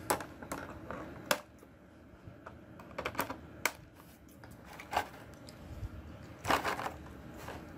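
Irregular sharp clicks and crackles of a thin clear plastic packaging tray as an action figure is worked loose and lifted out, with a denser burst of clicking near the end.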